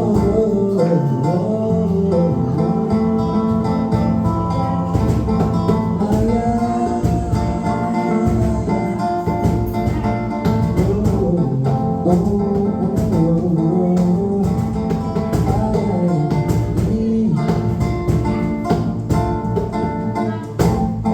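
A voice singing a song with guitar accompaniment and a steady beat.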